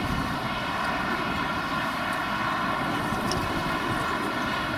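Jet engines of a Lufthansa Airbus A380 (four Rolls-Royce Trent 900 turbofans) running steadily with the airliner on the ground: an even, many-toned whine over a low rumble.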